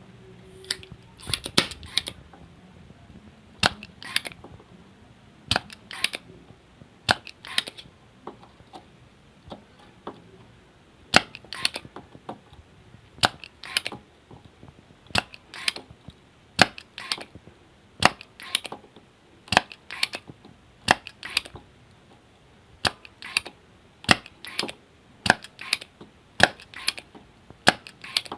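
Repeated sharp clicks and snaps, often in pairs or small groups, at irregular intervals of one to two seconds, from tools at work while two audio driver transistors are desoldered from a CRT TV's circuit board.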